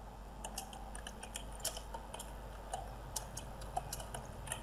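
Computer keyboard being typed on: faint, irregular key clicks, several a second.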